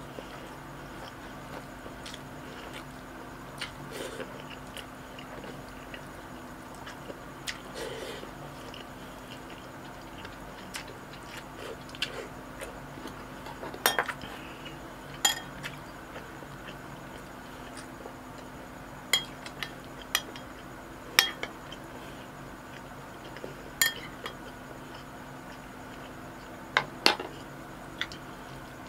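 Close-miked eating by hand: scattered sharp clicks and taps, about a dozen, as food is picked up from a wooden board and eaten, with faint mouth sounds, over a steady low hum.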